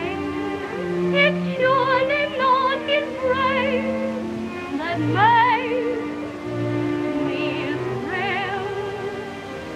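A woman singing a torch song in a high voice with a wide vibrato, over an orchestra holding sustained chords beneath her, as heard on an early sound-film recording.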